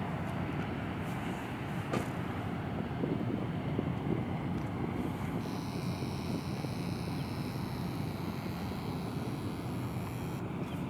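Tugboat diesel engines running with a steady low rumble as they push an LNG carrier, with a single click about two seconds in.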